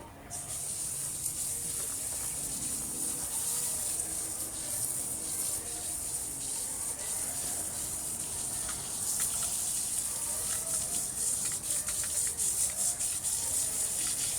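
Water running steadily as oily hands are rinsed under it, with the flow splashing over the hands. It turns on about a third of a second in.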